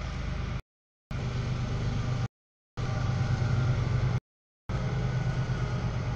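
Double-stack container freight train rolling past: a steady low rumble of wheels on rail. The audio cuts out to total silence three times, each for about half a second.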